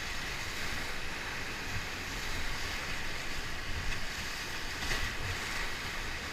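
Whitewater rushing around a raft, with wind buffeting the action-camera microphone; a brief louder burst about five seconds in.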